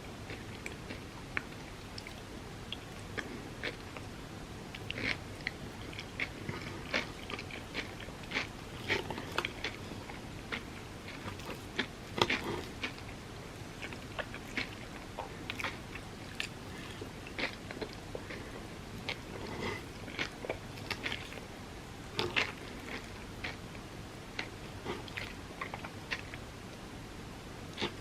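Close-up eating sounds: chewing and biting into crepes filled with Dubai chocolate filling, with irregular wet clicks and small crunches. The loudest bite comes about twelve seconds in.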